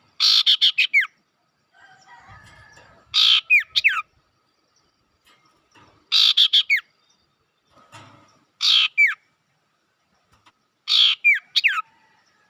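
Sirtu bird calls played as a lure recording, repeated five times roughly every three seconds. Each call is a harsh, buzzy burst followed by a few quick, downward-sliding whistled notes.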